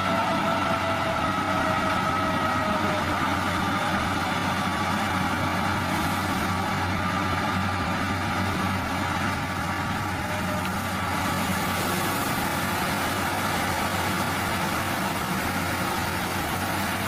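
Engine of heavy road-construction machinery running steadily, with a high whine over it that fades after about three seconds.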